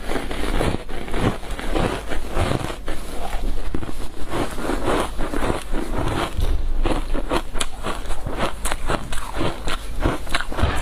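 Biting and crunching of frozen matcha green-tea powder ice: a continuous run of crisp, irregular crunches.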